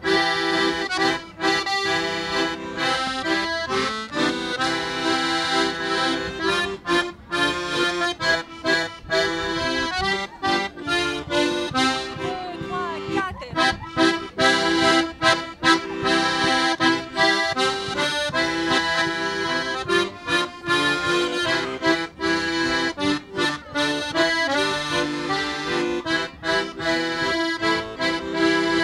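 An accordion ensemble, Hohner accordions among them, playing a tune together, chords and melody moving in a steady rhythm.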